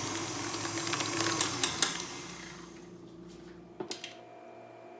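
KitchenAid stand mixer's motor running with a steady hum as it beats chilled crème pâtissière to loosen it. The sound fades away over the second half, with a couple of faint clicks near the end.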